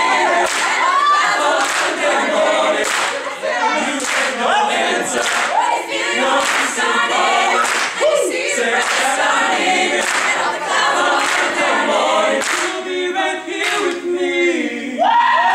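Mixed-voice a cappella group singing a soul/R&B arrangement over a steady percussive beat. Near the end the beat drops away and the voices hold a sustained chord.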